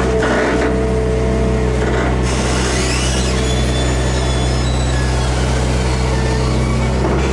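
Hydraulic excavator's diesel engine running steadily under load, heard from inside the operator's cab, with fainter higher tones shifting as the boom, bucket and swing are worked.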